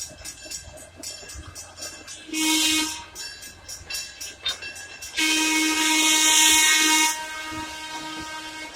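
Steam locomotive whistle blowing a short blast and then a longer, louder one that tails off quietly, over the rhythmic chuffing of the passing train.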